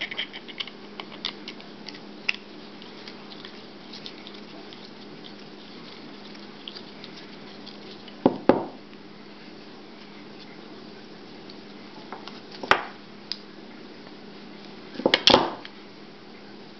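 Hand tools working on the small metal motor of a Vortech MP10 powerhead: an Allen key and screwdriver ticking and scraping against the housing while screws are undone, with a few sharper metal knocks in the second half as tools or parts are set down.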